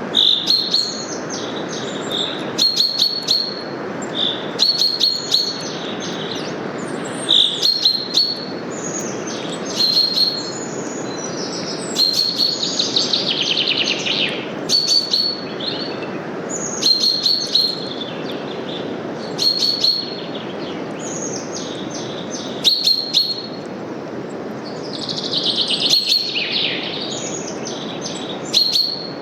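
Small birds chirping in short calls every two seconds or so, with a longer falling song phrase twice, over a steady rush of wind through forest leaves.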